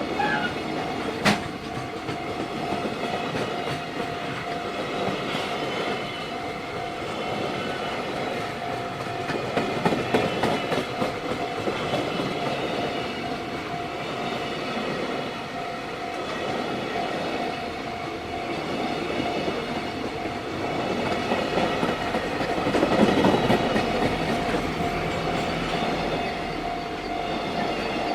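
A freight train rolling past, its wheels clattering over the rail joints, with a level-crossing warning bell ringing as a steady high tone. There is a sharp click about a second in, and the train noise swells twice.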